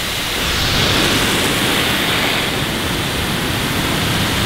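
Big Boi Blower Pro dual-motor car dryer running at full speed: a steady rush of blown air driving water off the car's window.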